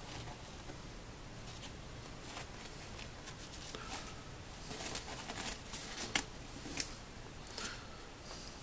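Scissors snipping slowly through a quilted nylon coat: a run of crisp cuts, densest from about three to seven seconds in, over the rustle of the slick fabric.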